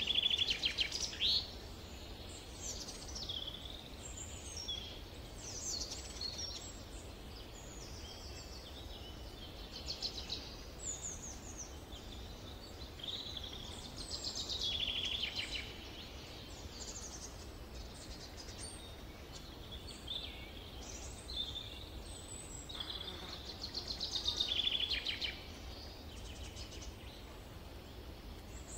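Songbirds singing in a summer forest, short whistled and trilled phrases coming every second or two, over a steady low background rumble.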